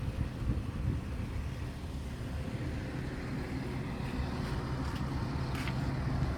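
Wind buffeting the microphone at the beach, a dense low rumble, with a steady low hum coming in over the second half.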